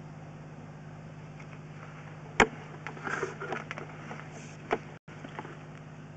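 Steady low electrical hum from the sewer-scope camera equipment, with a sharp click about two and a half seconds in and another just before five seconds.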